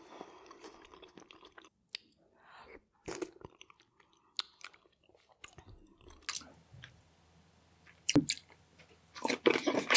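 Close-miked eating sounds: soft chewing and small mouth clicks, then, about nine seconds in, loud dense crunching and biting into a giant prawn.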